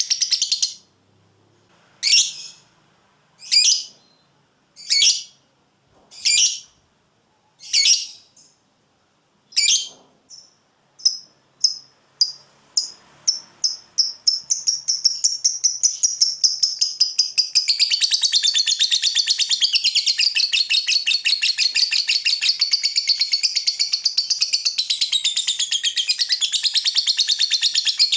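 Lovebird ngekek: several separate shrill calls about a second and a half apart, then chirps that come faster and faster and run together about halfway through into one long, fast, unbroken trill.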